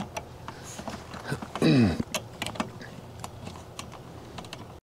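Scattered small metal clicks and clinks of bracket hardware being handled as a nut is started on its bolt, with a brief falling voice sound about two seconds in.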